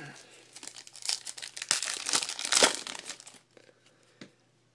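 Foil wrapper of a 2012 Panini Prestige football card pack crinkling and tearing as it is ripped open. It is a busy crackle lasting about two seconds that then stops.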